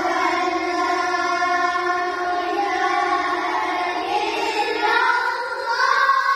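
A group of boys chanting the Islamic call to prayer (adhan) together, holding long, ornamented notes that climb in pitch about four to five seconds in, as they practise moving between the pitch levels of the call.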